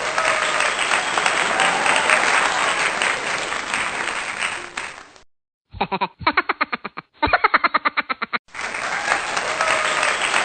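Audience applause and cheering, which stops about five seconds in. After a short gap comes about three seconds of a rapidly repeated pulsing sound, roughly seven pulses a second. The applause then starts again near the end.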